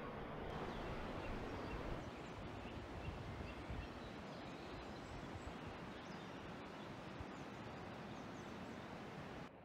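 Outdoor ambience: a steady rushing hiss with a few faint bird chirps, cutting off suddenly just before the end.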